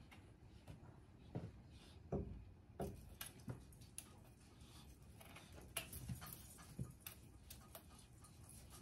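Faint, irregular taps and light rustles as cats bat at the branches and ornaments of a small artificial Christmas tree and move about on the wooden floor, against a quiet room.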